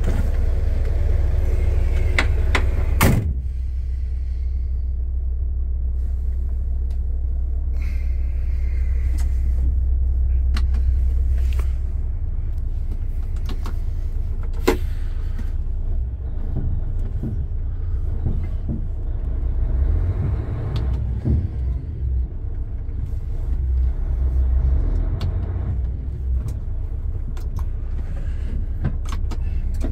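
Mercedes-Benz Actros 1843's V6 diesel engine idling in neutral, heard inside the cab as a steady low rumble. A sharp click comes about three seconds in, with smaller clicks and knocks scattered after it.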